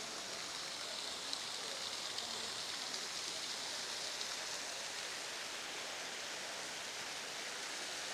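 Steady hiss of outdoor ambience, strongest in the upper range, with a few faint brief ticks in the first few seconds.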